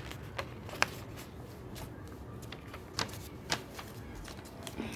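A sheet of paper being folded and creased by hand: soft rustling with a few sharp crisp taps, the loudest a little under a second in and twice around three seconds in.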